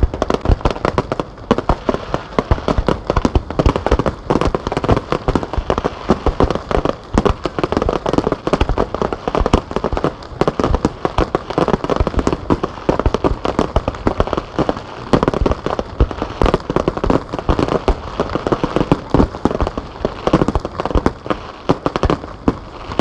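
Star mine fireworks barrage: aerial shells launched and bursting in rapid succession, a dense string of bangs, many a second, with no pause.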